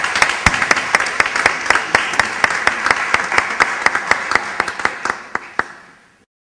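Audience applause, with one person's sharp claps close to the microphone standing out at about four a second; the applause fades in the last second or so and cuts off.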